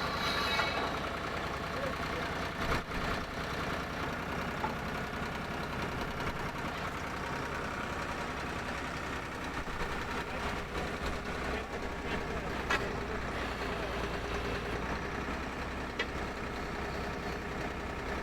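Drill rig engine running steadily while drill pipe is being changed, with a few sharp metallic clanks from the pipe handling.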